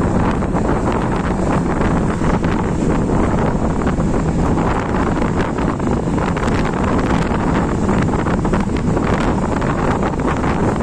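Wind buffeting the phone's microphone, a loud, steady, gusty rumble.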